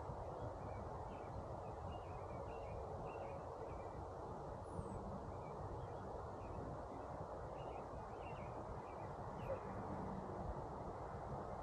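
Steady buzzing of honey bees around a hive, with small birds chirping faintly in the background.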